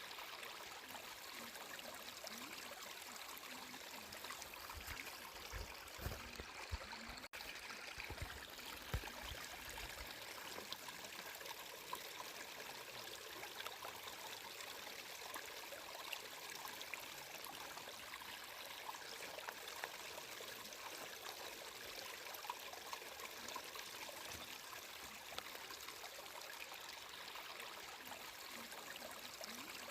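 Water flowing and trickling steadily, with a few low bumps about five to ten seconds in.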